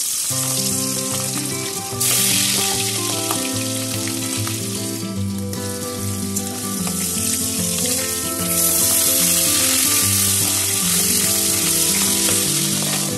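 Boal fish steaks sizzling as they fry in hot mustard oil in a wok, the sizzle getting louder about two seconds in and again about two-thirds of the way through. Background instrumental music plays underneath.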